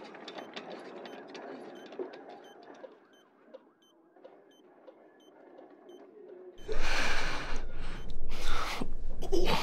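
Faint electronic beeping, about two short beeps a second, like a hospital patient monitor, over a quiet room murmur. Near the end, three loud noisy bursts cut in.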